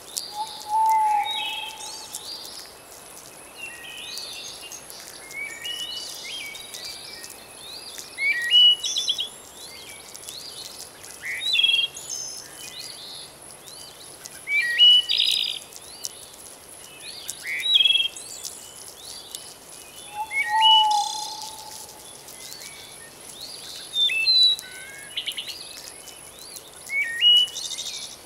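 Birds singing: short, quick chirping phrases repeated every few seconds, with a lower single whistled note about a second in and again around twenty seconds in, over a steady faint high-pitched hum.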